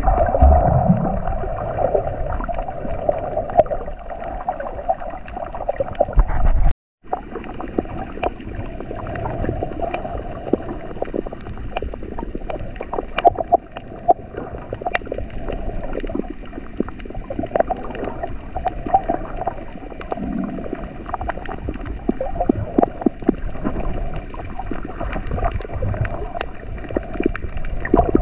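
Underwater sound picked up by a camera in its waterproof housing while snorkeling over a coral reef: a muffled, steady hum and rumble of water with many small scattered clicks and crackles. The sound cuts out for a moment about seven seconds in.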